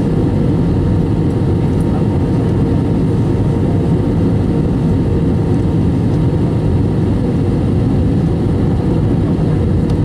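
Steady jet airliner cabin noise inside an Airbus A321 in flight on approach: an even, deep roar of engines and airflow with a faint steady hum over it.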